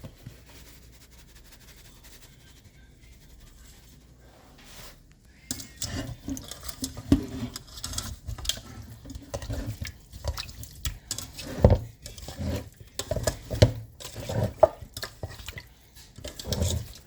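Raw chicken wings being handled and tossed in a bowl while being seasoned. Irregular wet slaps, rustles and knocks start about five seconds in, after a faint quiet stretch.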